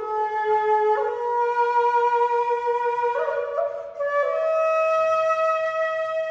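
Background music: a flute playing slow, long held notes, stepping to a new note every second or two, with a short break about four seconds in.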